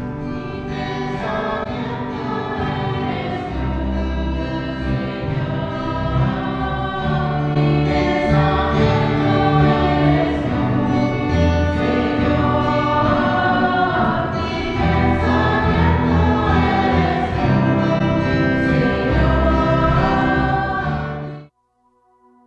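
Church music group singing a hymn to acoustic guitar accompaniment; the music cuts off abruptly near the end.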